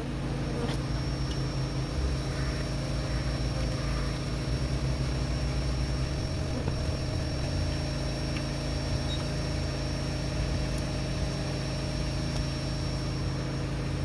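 A small motor running steadily: an even low hum with a faint high whine over it.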